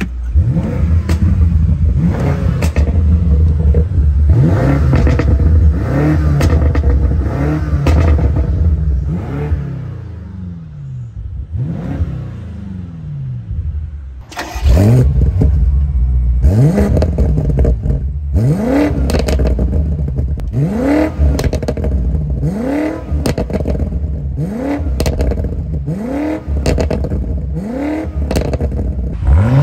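BMW M5 Competition's 4.4-litre twin-turbo V8 under hard acceleration. The pitch climbs and drops back over and over with each gear change, with sharp cracks from the exhaust. It eases off about ten seconds in, then pulls hard again from about fourteen seconds.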